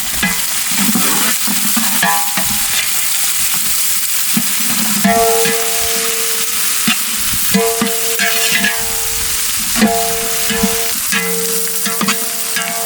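Chopped onions sizzling steadily in hot oil with whole spices while a ladle stirs and scrapes the pot, knocking against it every second or so, frying them until golden.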